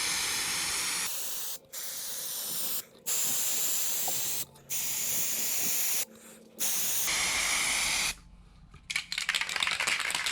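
Primer being sprayed in about five hissing bursts of a second or so each, with short breaks between passes, laying on a heavy coat. It gives way to a quick clicking rattle near the end.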